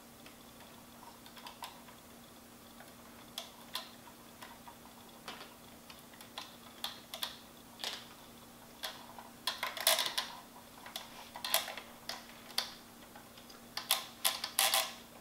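Fingers handling a 1:18 scale model car, pressing on and rubbing at its glued rear spoiler: scattered small clicks and scratches, bunching into quick clusters about ten seconds in and again near the end, over a faint steady hum.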